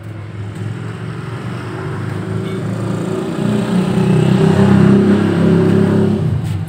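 Automatic scooter engine running with the CVT cover off, revved up steadily louder for several seconds and then let off near the end.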